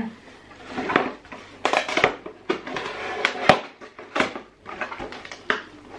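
Handling sounds as a dose of Glauber's salt is got ready to drink at a kitchen counter: a run of irregular crackles, rustles and sharp clicks.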